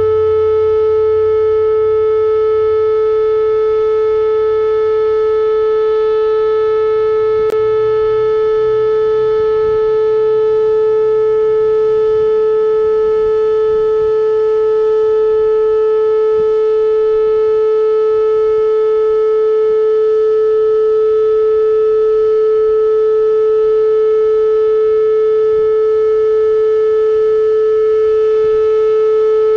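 Whelen outdoor tornado warning siren sounding a loud, steady, unwavering tone for its weekly test.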